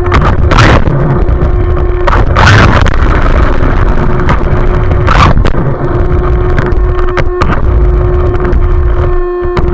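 Onboard sound of a radio-controlled car driving on concrete: a steady motor whine over loud rumble and rattle from the chassis, with a few brief louder rushes of noise, the longest about two seconds in.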